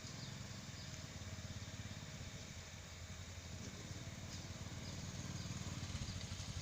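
Motorcycle engine running at low revs, growing louder toward the end, with a few faint high chirps over it.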